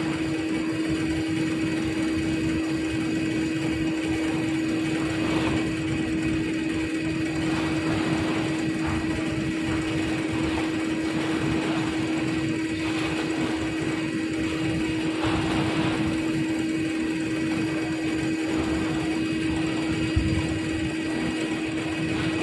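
Diesel fuel being pumped through a dockside bunkering line and its flow meter during a ferry refuelling. It is a steady mechanical hum with one constant droning tone, unbroken throughout.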